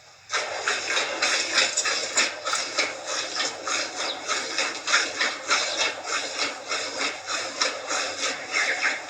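Hand milking of a water buffalo: milk squirting in jets into a container, about two strokes a second, starting abruptly just after the beginning.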